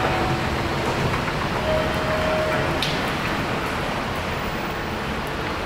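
Steady vehicle rumble at a station, slowly fading, with a brief steady tone about two seconds in and a sharp click near three seconds.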